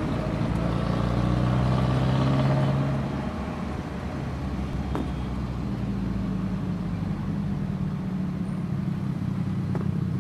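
Motor vehicle engine running with a steady low hum and road noise, a little louder for the first three seconds.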